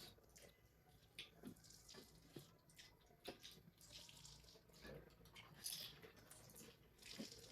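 Near silence broken by faint, scattered soft clicks and brief wet noises of eating.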